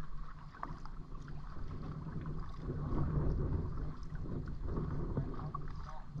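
Kayak being paddled on the water: the paddle blades dip and splash, with a few light knocks. Wind rumbles on the microphone underneath.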